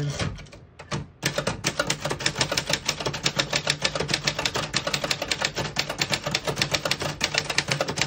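Remington Streamliner manual portable typewriter being typed on. Quick keystrokes begin about a second in and keep clacking at a brisk, even rate of roughly eight a second, the keys striking without skipping or sticking.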